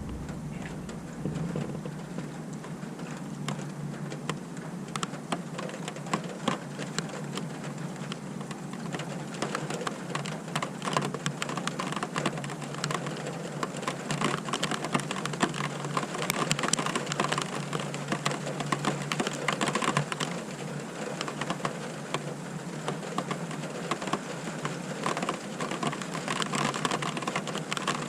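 Rain during a thunderstorm: a steady hiss with dense, irregular ticking of drops hitting a nearby hard surface.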